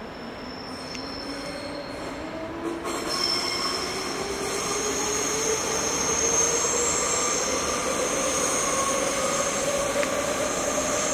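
ICE T electric multiple unit pulling out, its traction drive whining in a steadily rising pitch as it gathers speed and grows louder. A high squeal from the wheels on the rails joins about three seconds in.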